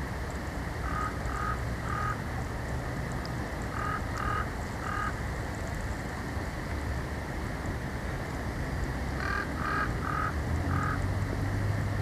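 A bird off camera gives short harsh calls in quick series, three notes twice and then four near the end, over a steady background hiss.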